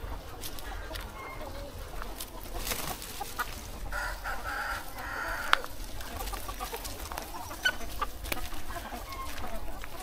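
A large flock of free-range chickens clucking and calling together, with a couple of sharp clicks, one about halfway through and one a little later.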